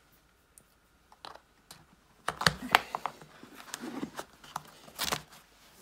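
Clicks and knocks of a toolbox being handled and opened: a few scattered clicks, then a dense run of clicking and knocking for about three seconds.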